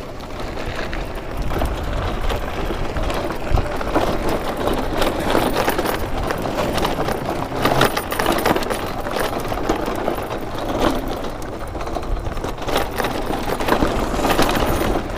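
An e-bike riding over rough, rocky ground: tyres crunching and the frame rattling with frequent knocks, over a steady low rumble.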